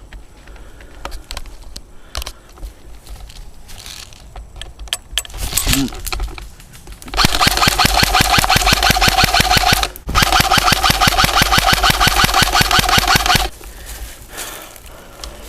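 Airsoft electric rifle firing on full auto: two long, rapid, evenly spaced bursts of a few seconds each, with a brief pause between them about ten seconds in. Before the bursts, only scattered faint clicks and rustling.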